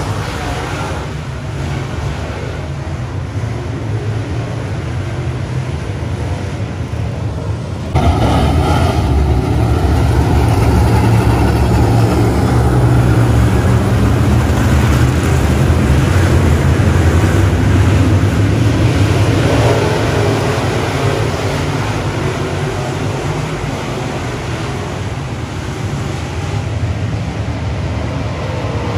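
A field of dirt late model race cars running around a dirt oval, their V8 engines a deep, continuous rumble. The sound jumps suddenly louder about eight seconds in and eases off again after about twenty seconds.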